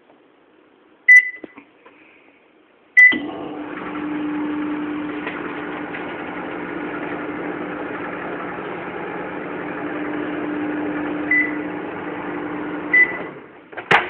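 Microwave oven: keypad beeps, then the oven running with a steady hum and fan noise for about ten seconds, two more beeps near the end, and a sharp click just after it stops.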